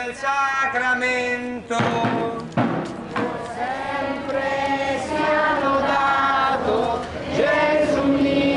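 A choir singing a slow hymn-like chant in long held notes. There is a short burst of noise between about two and three seconds in.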